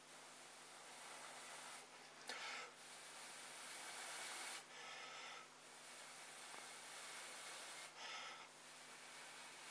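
Faint long breaths blown into a smouldering tinder bundle of plant fibres to coax the ember to flame. There are about four steady blows, each a couple of seconds long, with short inhales between them.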